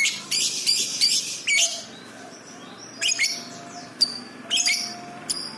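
Lovebird calling in shrill, sharp chirps that come in short clusters about once a second, with brief pauses between.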